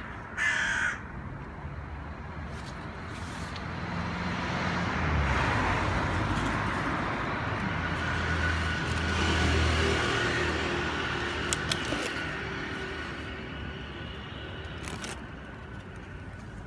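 A single short animal call just after the start, then a passing vehicle's low rumble that swells over several seconds and fades away.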